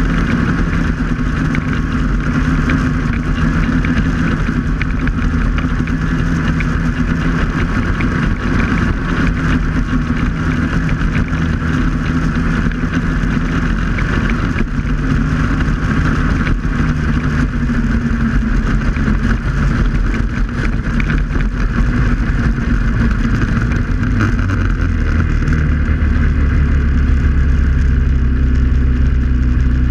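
Snowmobile engine running steadily at cruising speed over a constant rushing noise, its note shifting a few times and settling lower in the last few seconds.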